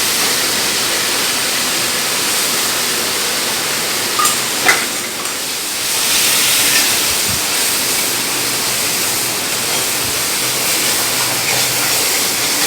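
Tomato puree and ground spice paste sizzling in hot sesame oil in a pan, a steady hiss as the masala fries, with a few brief knocks about four to five seconds in.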